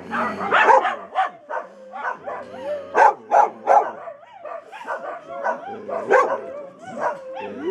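A dog whining in wavering, rising and falling cries, broken by short sharp yips.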